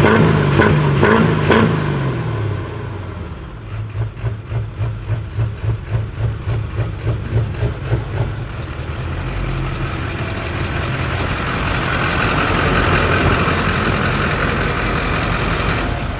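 Lifted Chevrolet Silverado 2500HD's 6.6-litre Duramax V8 turbodiesel revved in short bursts while blowing black smoke, then idling with a regular throb of about two or three pulses a second, before settling into a steadier, even run.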